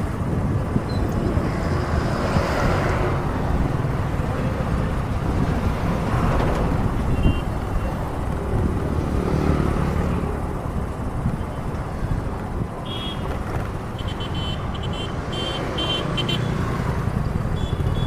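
Road traffic noise: a steady rumble of vehicles on the road, with a couple of vehicles swelling past in the first seven seconds. Short, high-pitched sounds come in a quick cluster past the middle.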